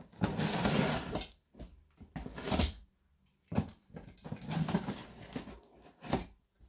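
Box cutter slicing through packing tape on a large cardboard box: several short scraping strokes with a few sharp clicks between them.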